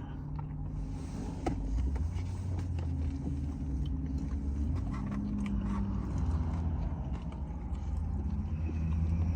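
Low steady rumble of an idling car engine, with a few faint clicks of eating.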